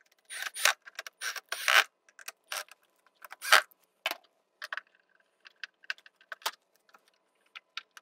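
Irregular clicks, rattles and scrapes of a Minn Kota Talon shallow-water anchor's plastic control-panel cover being handled and screwed down with a cordless screwdriver. The loudest clatter is in the first four seconds, with lighter ticks after.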